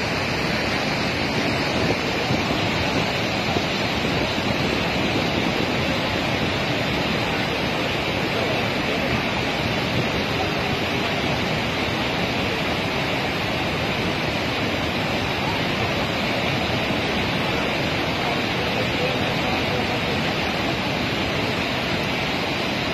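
Waterfall in flood, swollen with muddy floodwater: a loud, steady rush of water pouring over the falls that never lets up.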